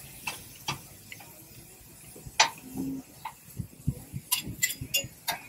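Scattered sharp light clicks and taps, the loudest about two and a half seconds in, with a quicker run of them near the end and a few soft low thumps between.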